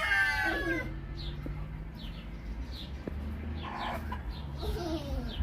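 The end of a rooster's crow, falling in pitch and stopping about a second in. It is followed by soft clucking and faint, short high chirps repeating over a low steady hum.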